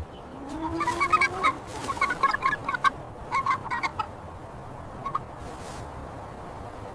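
Hen clucking, a string of short clucks over about three seconds, then stopping.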